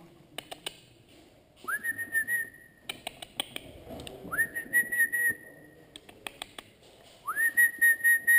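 Three whistling tones about three seconds apart, each sliding quickly up in pitch and then held for about a second, with scattered sharp clicks between them.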